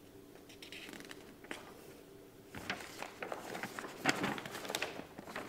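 Page of a paper picture book being turned by hand: faint rustling and crackling of paper, starting about halfway through and lasting a couple of seconds.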